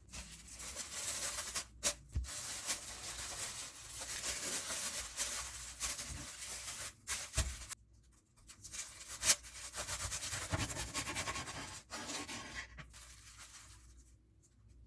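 Dry scraping and rustling from hands working at the sandwich, in long stretches broken by short pauses, with a few sharp clicks.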